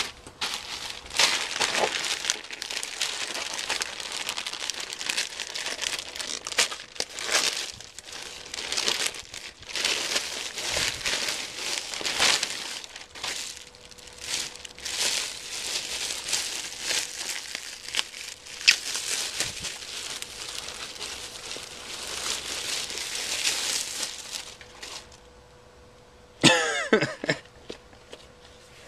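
Clear plastic bag around a rubber horse head mask crinkling and rustling in irregular bursts as it is handled and unwrapped, stopping about 25 seconds in. A short vocal sound follows near the end.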